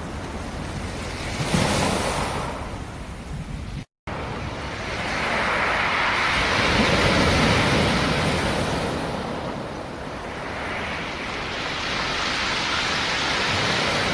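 Sea surf: waves breaking and washing ashore, swelling and ebbing every few seconds, with a sharp crash about a second and a half in. The sound cuts out completely for a split second about four seconds in.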